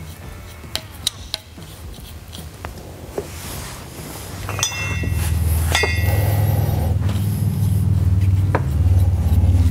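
Metal steering parts and a brush handled on a workbench: light taps and clicks, then two short ringing metal clinks about halfway through. Around the same time a loud low hum comes in and becomes the loudest sound.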